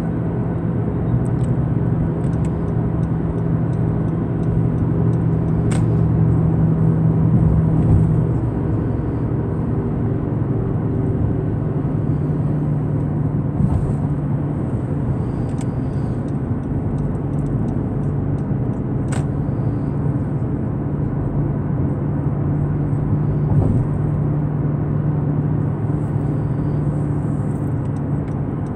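Car cabin noise while cruising on an expressway: a steady drone of engine and tyres with a low hum, which dips slightly in pitch about eight seconds in. A few faint clicks can be heard.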